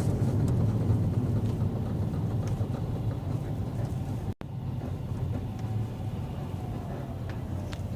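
2007 Mazda 3 sedan rolling slowly under braking: a steady low rumble of the car, with a faint squeak from the front suspension that comes on when the brake pedal is pressed.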